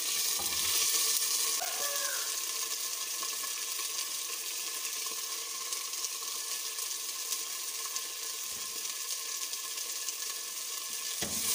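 Hot oil with fried garlic and ginger sizzling in a clay handi as chopped tomatoes are tipped in. The sizzle is loudest in the first two seconds, then settles to a steady hiss.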